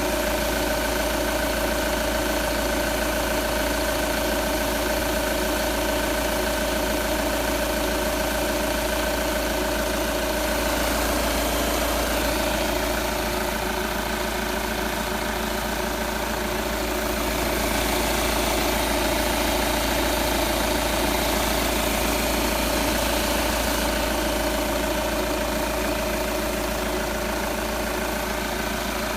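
Audi A4 8K 2.0 TDI four-cylinder turbodiesel engine idling steadily, which the owner asks may be running too loud.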